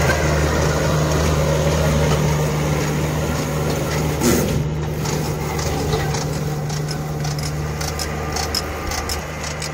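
Farm tractor's diesel engine running steadily under load with a low hum. It is towing a compost spreader whose rotating rear beaters are throwing compost out behind it.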